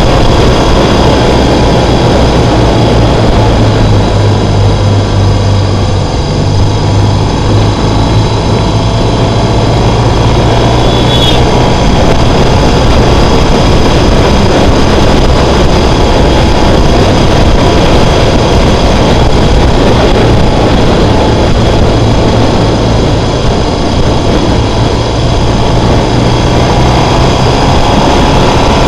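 BMW R1200GS flat-twin engine running steadily at road speed, recorded on the moving bike with heavy wind rush on the microphone. The engine note shifts a little as the throttle changes, and there is one brief high chirp about a third of the way in.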